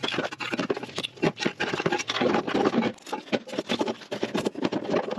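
Close, irregular scraping, rubbing and light knocking of hands and parts being worked into an engine bay, with many quick clicks and scrapes in a row.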